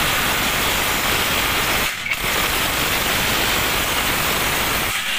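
Cordless impact wrench hammering on a wheel hub's center nut to loosen it so the hub and bearing can be pulled. It runs in two long bursts with a brief break about two seconds in, and stops just before the end.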